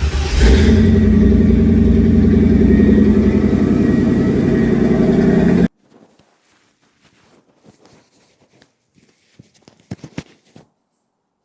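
A car's V8 engine running loud, picking up about half a second in, then cutting off abruptly about six seconds in. After it come a few faint clicks and taps.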